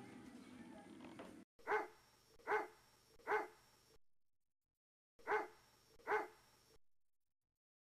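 A dog barking: three barks about 0.8 s apart, a pause of dead silence, then two more barks. Background music fades out in the first second and a half.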